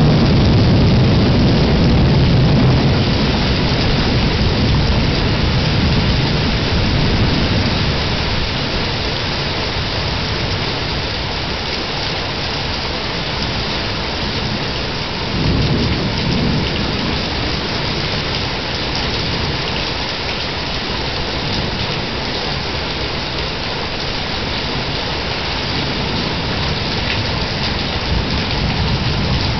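Steady heavy rain pouring down, with thunder rumbling low at the start and fading away over several seconds, then a second, shorter rumble about halfway through.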